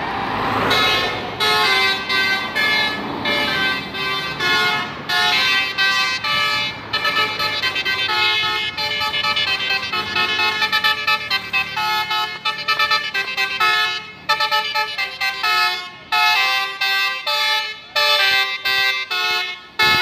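Basuri telolet multi-tone bus horn playing a fast melodic tune of short, bright notes in quick runs, broken by brief pauses.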